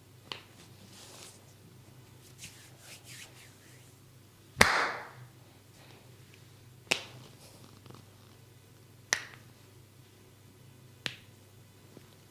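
Sharp snaps from a barber's hands working on a body during a massage: a small one at the start, then four about two seconds apart, the first of these the loudest with a short tail, with soft rubbing between.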